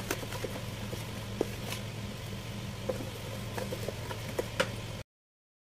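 Wooden spatula stirring a liquid cornstarch and milk-powder mixture in a bowl, with scattered light knocks and scrapes against the bowl over a steady low hum. The sound cuts off to silence about five seconds in.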